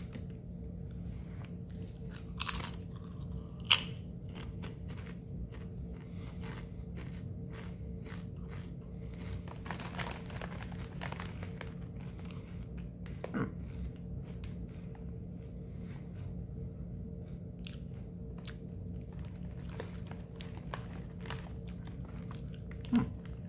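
A person chewing Sun Chips Chili Lime multigrain chips, with repeated short crisp crunches scattered throughout and a louder snap about four seconds in, over a steady low hum.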